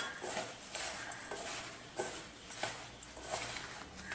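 A hand mixing dry bread powder, rice flour and chopped herbs in a stainless steel bowl, fingers rubbing and scraping through the crumbly mix. It makes soft rustling strokes, about three a second.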